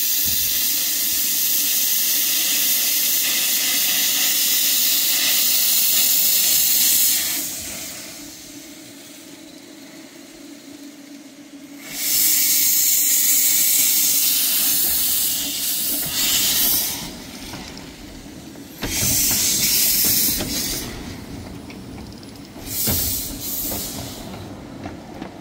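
Narrow-gauge steam locomotive hissing loudly as steam vents from around its cylinders. A long blast of about seven seconds, a second blast after a lull, then shorter bursts.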